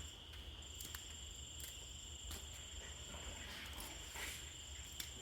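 Crickets trilling steadily in a high, continuous drone, with a few faint clicks and a low hum underneath.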